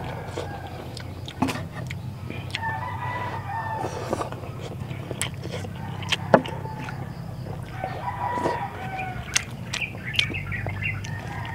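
A rooster crowing twice in long, drawn-out calls, the first about two and a half seconds in and the second near eight seconds. Scattered sharp clicks of eating and a spoon run through, the loudest about six seconds in.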